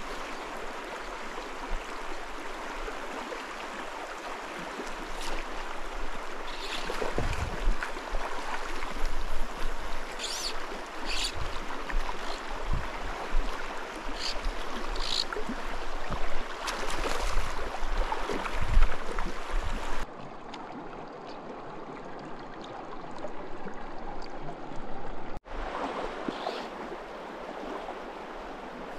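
Shallow mountain stream rushing over a rocky bed close to the microphone, with scattered low bumps and a few clicks. About two-thirds through, the water sound turns quieter and duller.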